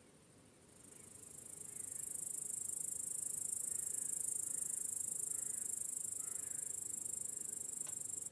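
Crickets trilling in a dense, steady, high-pitched chorus. It fades in over about a second, holds even, and cuts off abruptly near the end.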